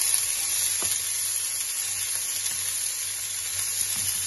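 Zucchini slices sizzling on the preheated ribbed plates of a Tefal OptiGrill+ contact grill as they are laid down by hand: a steady hiss, with one faint tap just under a second in.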